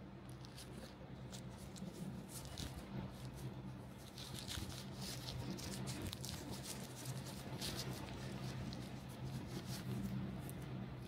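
Crinkling and rustling of a thin white wrapper being peeled off a small camera accessory by gloved hands, a quick run of short crackles that is busiest in the middle. A steady low hum runs underneath.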